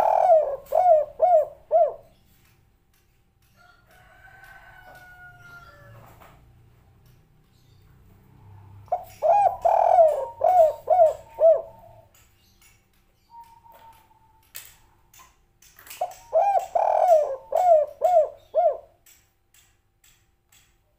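Spotted dove (tekukur) cooing: three phrases, each a quick run of about six coos that fall in pitch, spaced about seven seconds apart. The first phrase is already under way at the start.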